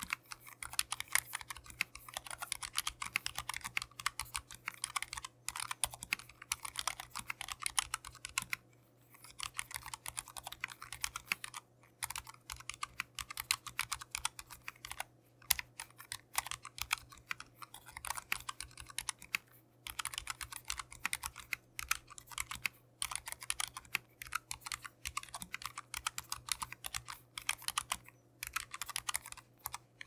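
Typing on a Keychron K3 low-profile keyboard fitted with Keychron low-profile optical black linear switches and dampened with tape and foam: a dense, fast stream of key clacks with a few short pauses.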